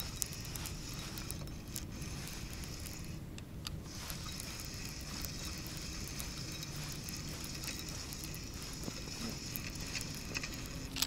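Spinning fishing reel being cranked as a hooked small bream is wound in: a steady whir with many light clicks.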